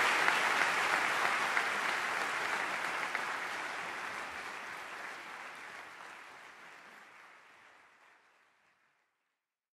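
Audience applauding, the clapping fading out evenly until it is gone about nine seconds in.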